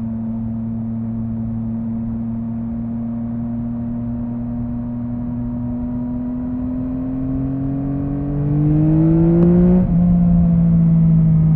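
Yamaha MT-09's inline-three engine pulling under throttle, its pitch rising slowly and getting louder as the throttle opens. Just before the end there is a sudden brief dip and drop in pitch: a quick-shifter upshift. The engine then runs on steadily at the lower pitch.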